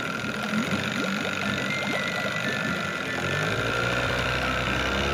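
Cartoon sound effect of a ferry's motor and propellers running as the boat gets under way, with water churning. A deeper rumble comes in about three seconds in.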